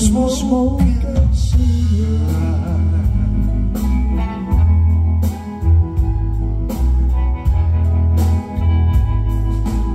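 Live rock band playing an instrumental break: a lead melody with a rising slide and wavering held notes over strummed guitars, a heavy bass line and regular drum hits.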